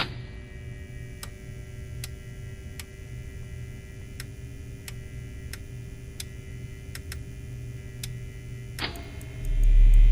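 Steady electrical hum made of several held tones, with scattered sharp clicks. Near the end a loud low bass tone comes in.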